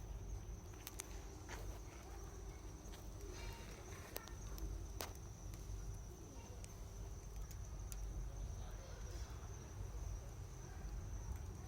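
Driftwood campfire crackling, with scattered sharp pops and snaps a second or so apart, over a steady low rumble.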